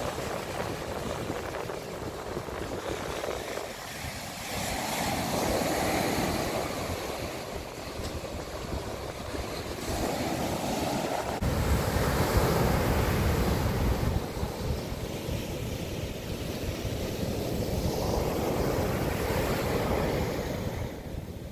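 Ocean surf breaking and washing up the shore, swelling louder every few seconds as each wave comes in.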